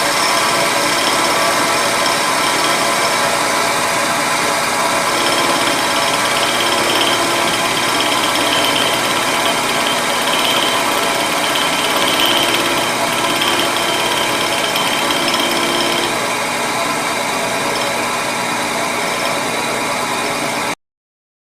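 Milling machine running steadily while its cutter cleans up a small cast flask clip, with a tone that comes and goes as the cutter bites. The sound cuts off suddenly near the end.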